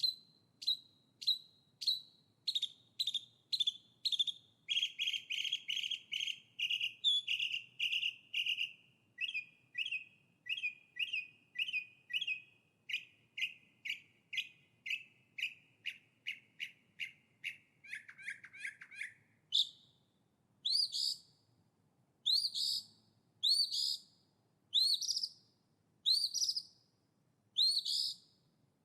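Songbird singing a long series of short, repeated notes: about two a second at first, quickening into a fast run of notes in the middle, then slower rising, upturned notes about one a second near the end.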